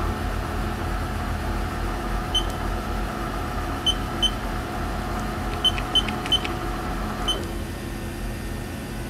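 Haas VF-3B vertical machining center running with a steady mechanical hum; its higher tones cut off about seven seconds in as the machine is stopped. Short electronic beeps from the control's keypad sound several times over it.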